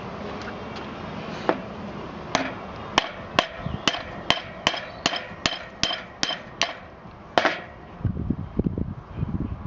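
A small hammer tapping a metal pin tool about a dozen times, roughly two to three blows a second, each strike ringing briefly, the last one loudest: the pin tool knocking the worn old drive pin out of an RC car's steel driveshaft. Handling rustle follows near the end.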